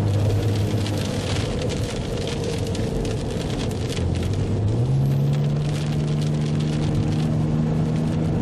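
Car engine heard from inside the cabin, driving on a dirt road; its note rises about halfway through as the car speeds up and then holds steady. Under it runs a steady hiss of tyre and road noise, scattered with small ticks of rain or grit on the car.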